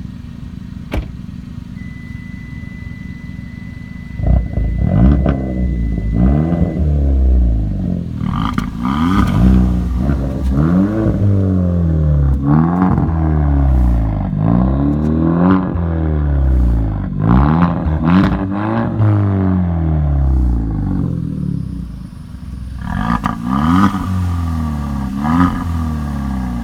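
Hyundai Elantra Sport's turbocharged 1.6-litre four-cylinder idling, then blipped repeatedly from about four seconds in, each rev rising and falling back. There is a short lull near the end, then a few more revs.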